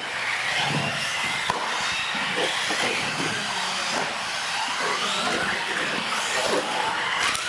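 Electric motors of radio-controlled UTV trucks whining, several at once, their pitch rising and falling as the trucks speed up and slow down.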